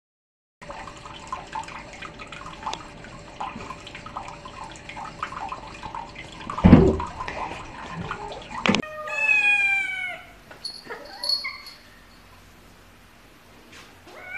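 Water running at a bathroom sink tap with small knocks and one loud thump. Then, after a sudden change, a cat meows in one long falling call followed by a few shorter calls.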